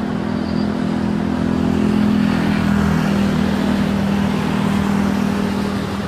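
Steady low engine drone with a hum, swelling a little about two seconds in and easing toward the end.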